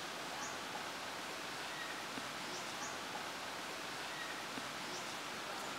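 Steady outdoor background hiss, like a breeze through leaves, with a few faint short chirps.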